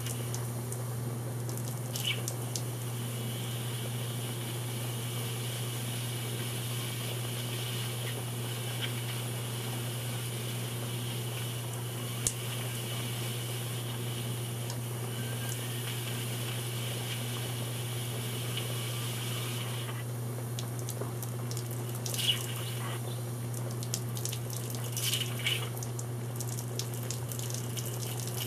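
Steam flowing through a wavy clear hose rig that holds water in its low spots: a steady hiss over a low hum. A few sharp knocks cut through it, one about 12 seconds in and more around 22 and 25 seconds: small bangs of condensation-induced water hammer, where steam collapses against the cooler water.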